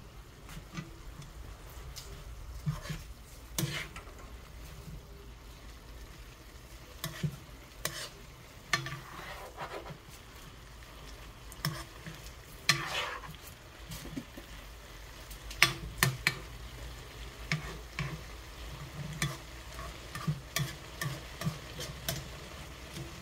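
Wooden spoon stirring and scraping green peppers and dried anchovies in a nonstick frying pan, with irregular knocks of the spoon against the pan over a low sizzle of frying.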